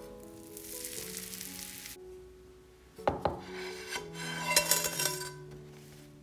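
Flatbread sizzling in a hot frying pan for the first two seconds, then a couple of knocks about three seconds in as the metal pan is set on a wooden board, then scraping as the bread slides out of the pan onto the board. Soft background music plays throughout.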